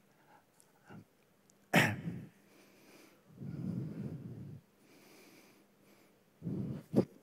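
Breathing and handling noise close to a speaker's microphone: a sharp pop about two seconds in, then a couple of short breathy puffs, the last ending in a click.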